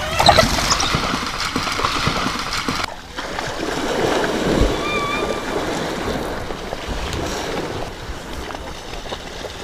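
Water splashing and sloshing as a hippopotamus charges through the shallows at African wild dogs, with a brief high-pitched call about five seconds in.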